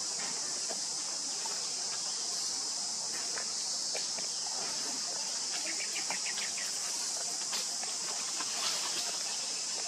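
Steady high-pitched drone of insects, with scattered faint clicks and rustles and a short run of quick ticks a little past halfway.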